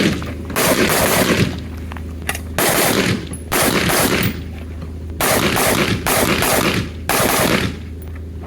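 Rifle fire during a practical shooting stage: rapid strings of shots, about six or seven strings each lasting well under a second, separated by brief pauses.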